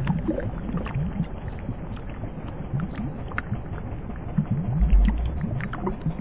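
Sound effect of water flowing through a radiator pipe, heard as from underwater: low bubbling gurgles with scattered small pops, and a deep whoosh about five seconds in.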